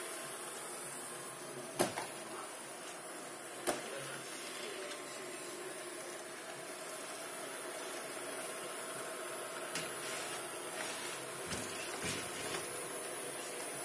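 Robot vacuum cleaner running steadily, its motor and brushes humming as it moves across a hard floor. Two sharp knocks come about two and four seconds in, with a few lighter clicks near the end.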